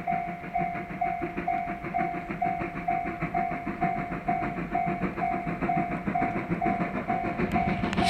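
Level-crossing warning bell ringing steadily at about two strokes a second, over the exhaust beats of the C56 steam locomotive approaching as it works up a 16 per mil grade.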